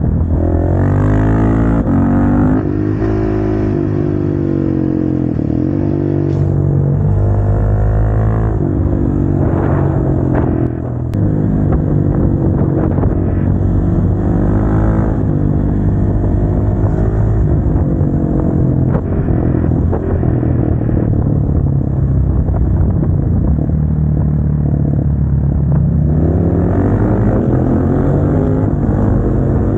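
KTM 690 SMC-R's single-cylinder engine under way, heard from on the bike, its revs rising and falling again and again through the ride, with a brief dip in level about eleven seconds in.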